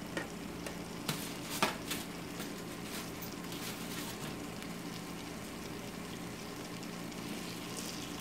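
Barbecue sauce sizzling gently in a skillet as grilled shrimp are slid off a metal skewer into it, with a few sharp clicks about a second in.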